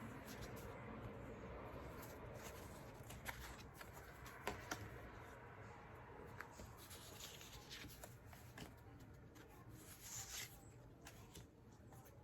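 Faint rustling of paper photo cards being handled and flipped, with a few sharp taps about three to five seconds in and a louder rustle near the end.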